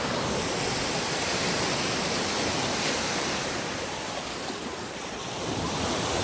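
Ocean surf washing steadily, with wind on the microphone; the rush eases a little about four seconds in and builds again near the end.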